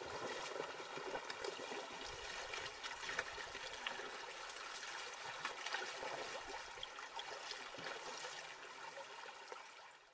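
Shallow river water running and trickling steadily, fading out near the end.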